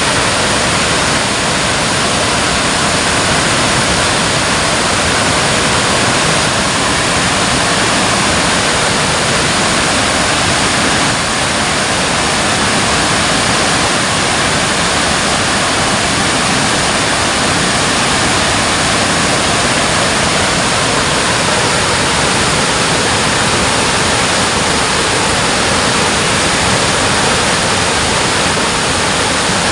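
Water rushing over a dam in a steady, dense, unbroken roar.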